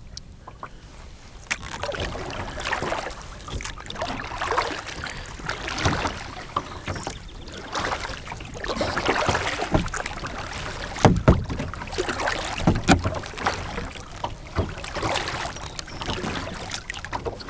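Kayak paddle splashing in lake water, rising and falling in uneven swells every second or two with a few low thuds.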